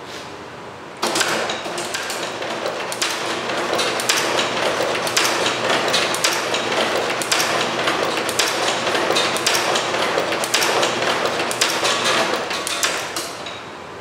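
Artos CS-6-E wire cutting and stripping machine cycling: a loud mechanical clatter with many irregular sharp clacks starts suddenly about a second in and dies away near the end, over a steady low hum.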